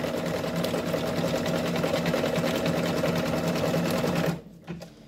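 Brother Innov-is Quattro 2 (6700D) embroidery machine running a placement stitch, its needle going at a fast, even rate over a steady motor hum. It stops suddenly about four seconds in as the placement outline finishes.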